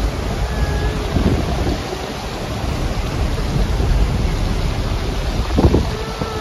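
Wind buffeting the microphone over a steady rushing roar of fast-flowing floodwater. One gust, about a second before the end, is the loudest.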